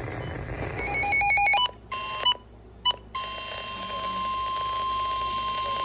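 Emergency alert broadcast tones ahead of a severe thunderstorm warning: about a second in, a short run of rapidly stepping electronic tones, then two brief beeps. From about three seconds in comes a steady single-pitch alert tone.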